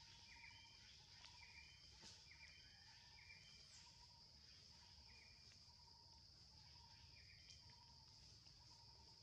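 Faint natural ambience: a steady high insect drone, with short bird-like chirps repeating about once a second.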